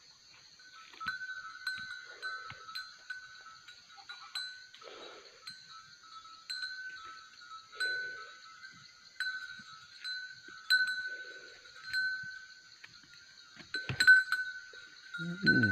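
Goat herd with bells clinking irregularly every second or so, faint bleats now and then, and a steady high hum behind. A couple of sharp knocks come about 14 seconds in, and a loud goat bleat near the end.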